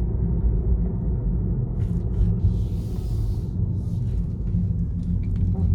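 Tesla Model 3 rolling slowly with a steady low rumble of tyres and road. Near the end there is a short dull creak from the front suspension, the sign of a worn first-generation front control arm. A brief hiss comes about halfway through.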